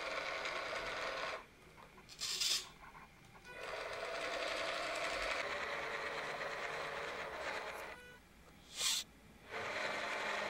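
Electric motor and gearbox of a 3D-printed 1:18 scale Land Rover Defender RC car whirring as it drives, in three spells of a few seconds with short pauses between. A brief hiss comes in each pause, about two and a half seconds in and again about nine seconds in.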